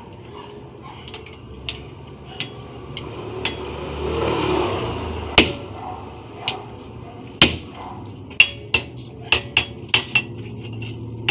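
Hand hammer striking metal in a blacksmith's shop: irregular blows that ring after each strike, light taps at first, then heavier blows, several in quick succession near the end. A swell of rushing noise rises and falls about four to five seconds in.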